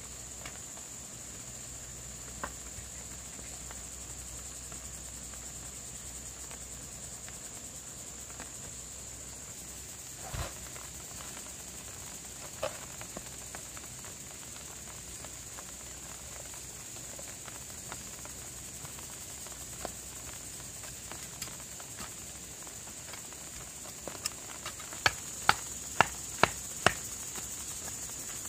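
A steady high-pitched insect chorus, with a few scattered knocks. Near the end comes a run of sharp knocks, about two a second, as a wooden pole rams soil around a wooden post.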